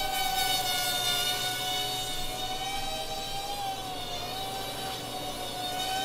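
Eachine Tiny QX95 micro FPV quadcopter in flight, its small brushed motors and propellers giving a high, steady whine that wavers slightly up and down in pitch.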